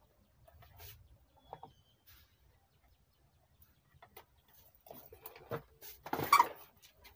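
Scattered light clicks and short rustles of multimeter test leads and wires being handled, with the loudest rustle about six seconds in.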